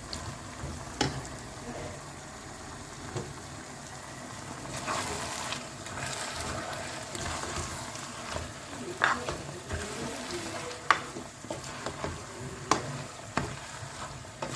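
Waterleaf and meat stock sizzling in a pot as it is stirred, with a spoon knocking sharply against the pot now and then.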